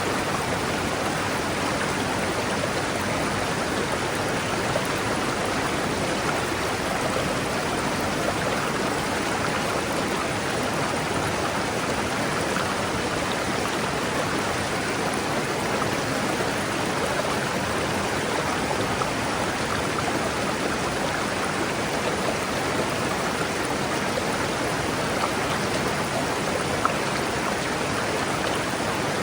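River water rushing steadily over rocks, with an even hiss.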